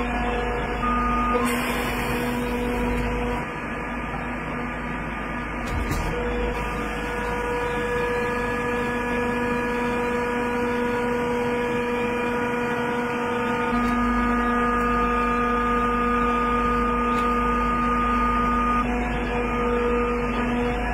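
Steady machine hum from a wire-rope swaging press, with several steady whining tones that drop out and come back as the press works.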